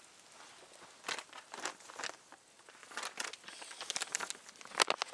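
Crinkling and tearing of a plastic seasoning packet being handled and opened: a run of short, irregular crackles starting about a second in.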